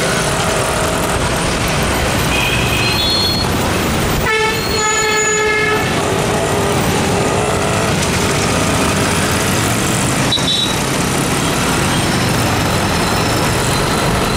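Steady engine and road noise from riding a motorbike through dense city traffic, with vehicle horns honking: a short toot about two seconds in, a long honk from about four to six seconds in, and another brief toot about ten seconds in.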